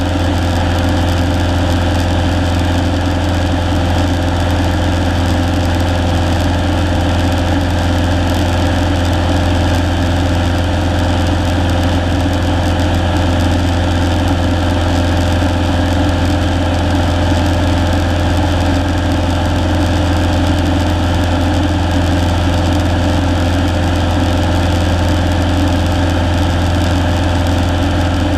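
Single-engine Cessna's piston engine and propeller droning steadily in flight, heard from inside the cabin: a strong low hum with a steady higher tone above it, unchanging throughout.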